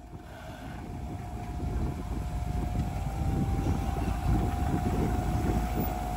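Off-road truck engine rumbling under load while crawling over rocks, steadily getting louder.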